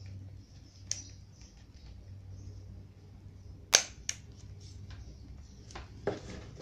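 About five sharp plastic clicks and snaps from a finger working the round button and red lever on a Bosch GSS 2300 orbital sander, the loudest two close together near the middle. The sander's motor is not running.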